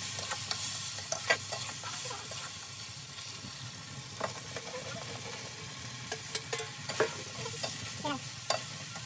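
Stir-frying in a steel wok: a steel spatula scrapes and clinks against the pan over a steady sizzle as fried chicken pieces are tossed with the vegetables.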